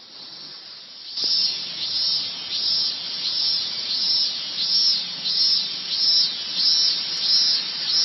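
An insect chirping in a steady rhythm, about two short high chirps a second, starting about a second in.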